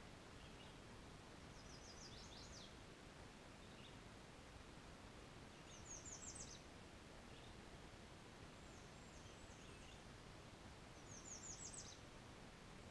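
A small songbird singing faint short, rapid trills of high downward-sweeping notes, four songs a few seconds apart, with soft scattered call notes between, over a low steady hiss.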